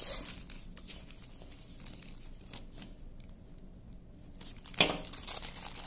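Small plastic bags of diamond-painting drills crinkling and rustling as they are handled, faintly and in scattered bits, with one sharper, louder crackle about five seconds in.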